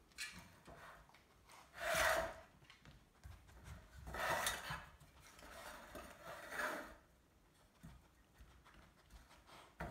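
A dog working tennis balls in a metal muffin tin with nose and paw: bursts of rubbing and scraping as the felt balls shift against the tin, about two seconds in, around four and a half seconds, and near seven seconds.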